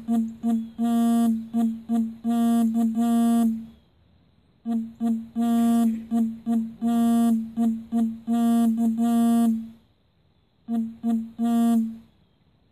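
A loud single-pitched tone repeated in a rhythm of short and long notes, in three runs with brief pauses between them, heard as music-like.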